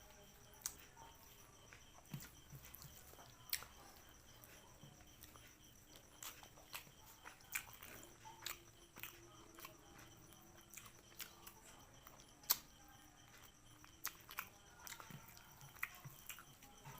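Close-up eating sounds: a person chewing and biting food, with quiet, irregular sharp crunches and clicks, the loudest about twelve seconds in.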